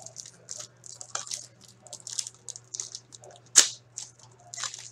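Foil trading-card pack wrappers crinkling and tearing in the hands as packs are opened, a string of short crackly rustles with one sharper, louder crack about three and a half seconds in.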